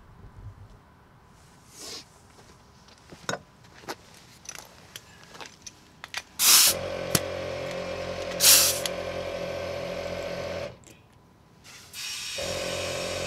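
Hand-held tyre inflator with a worn chuck on a compressed-air line. There are light clicks of the chuck and hose being handled, then two sharp bursts of hissing air as the chuck is pushed onto the valve. Air then runs steadily into the tyre with a hiss and a held tone, stops for about a second and a half, and starts again.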